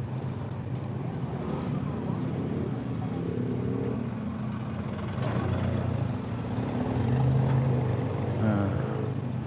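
Motorcycle engine running at low, steady speed in slow traffic, a constant low hum that swells slightly near the end, with other vehicles' engines close by.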